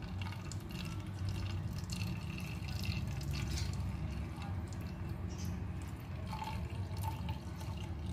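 Liquid trickling and dripping through a plastic tea strainer into a glass jar as it is poured from a steel tumbler, with many small irregular drips over a steady low hum.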